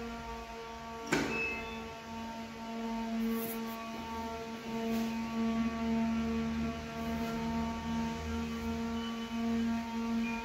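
A steady low droning hum with several overtones, swelling and fading slightly, and a single sharp click about a second in.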